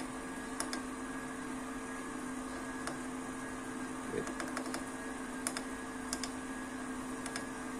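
Small front-panel push-buttons on a 2-metre (144 MHz) power amplifier clicking lightly as they are pressed, several scattered clicks, over a steady low hum.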